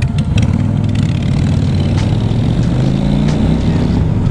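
Cruiser motorcycle engine running while riding, heard from on the bike. The pitch climbs partway through as it speeds up.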